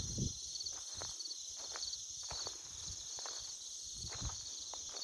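A steady, high-pitched chorus of insects such as crickets, with footsteps at a walking pace of about two a second.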